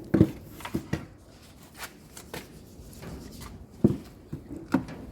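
Several sharp knocks and clicks of washing-machine parts and tools being handled during a repair. The loudest come just after the start and again about four seconds in.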